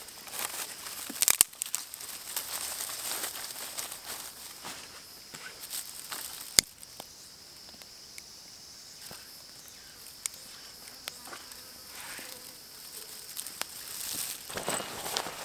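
Insects calling steadily in a high, even drone. Close rustling and crinkling come and go over it, with a few sharp clicks, the loudest about six and a half seconds in.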